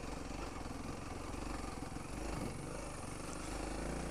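Honda CRF300L's single-cylinder engine running at low speed, pulling in second gear up a rough climb. Its note dips and rises briefly about two seconds in.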